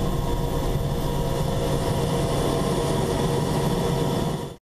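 AH-64D Apache Longbow's twin turboshaft engines and rotor running steadily on the ground, heard from inside the cockpit, with several steady whining tones over a low hum. It cuts off suddenly at the end.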